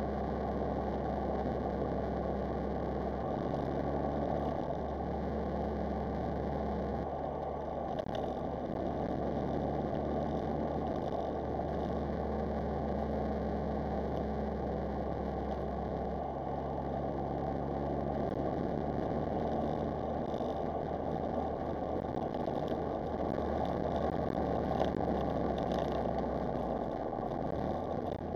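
Smart Roadster Brabus's turbocharged three-cylinder engine running steadily while the car drives along, over a steady road noise. The engine note shifts up or down a few times as the speed changes.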